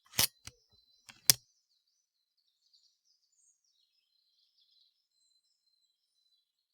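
Four short, sharp clicks within the first second and a half, the last one the loudest, followed by faint high bird chirping.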